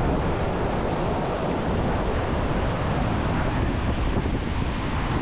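A fast river rushing over whitewater rapids, a steady, unbroken water noise with a strong low rumble.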